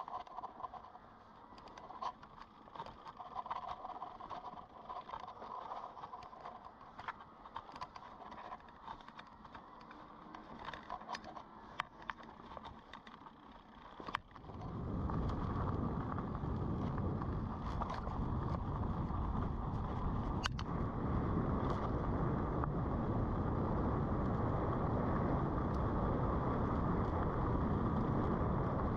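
Mountain bike ridden over a dirt trail: tyres on the ground, with small clicks and rattles from the bike. About halfway through it changes suddenly to a loud, steady rushing noise of wind and tyre roar at speed.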